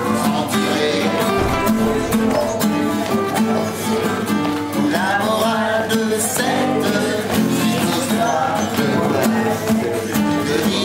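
Acoustic guitar strummed steadily, with several voices singing along in an amateur group sing.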